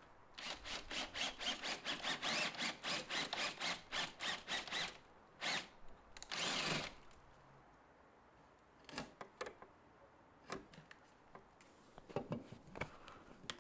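Chisel work cutting a lock mortise into a wooden door frame: a quick run of sharp strikes, about four a second, for some four seconds. After it comes a short scraping rush and a few scattered taps.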